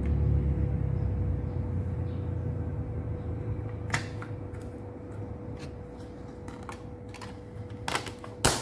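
Low rumble fading away over the first few seconds under a steady hum, then a run of light clicks and knocks, the loudest one near the end.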